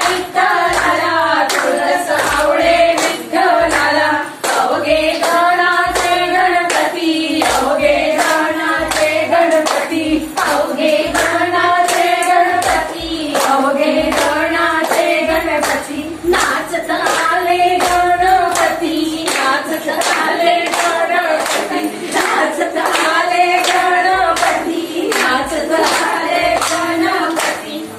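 A group of women singing a song together in unison, with a steady rhythm of hand claps keeping time.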